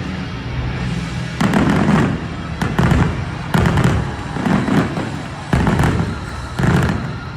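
Aerial fireworks exploding in a series of sharp bangs with low rumbling echoes, about one a second, starting about a second and a half in over faint background music.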